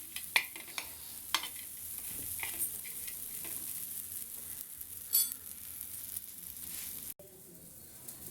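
Borax (suhaga) sizzling and crackling as it is roasted and puffs up white in a pan, with a spoon stirring and clicking against the pan. There is a louder scrape about five seconds in, and the sizzle drops away abruptly about seven seconds in.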